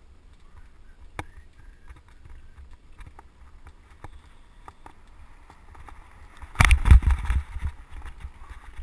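Mountain bike riding along a paved path, with wind rumbling on the microphone and scattered small clicks and ticks. About two-thirds of the way through comes a burst of loud rattling knocks as the bike jolts off the paving onto a gravel track.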